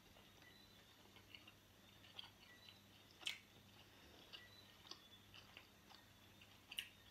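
Faint chewing of pepperoni pizza: soft, irregular mouth clicks, with two louder, sharper clicks about three seconds in and near the end.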